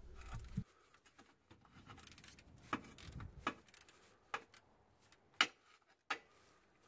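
Ratchet wrench with a deep socket working a bracket bolt loose: small metallic clicks, a quick run of them about two to three seconds in, then several single sharp clicks spaced out.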